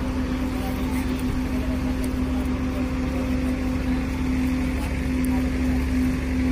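A large mobile crane's diesel engine running steadily under load while it holds a steel bridge girder span aloft, a constant low rumble with a steady droning hum over it.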